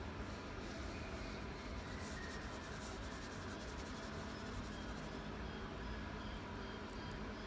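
Golden retriever puppy's paws faintly scratching and rustling on an artificial-turf mat, over a steady low hum.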